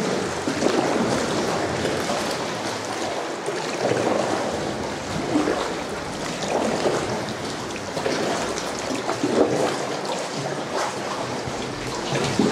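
Water sloshing and trickling around a sea kayak as it is paddled through a sea cave, with a paddle splash swelling up roughly every second and a half.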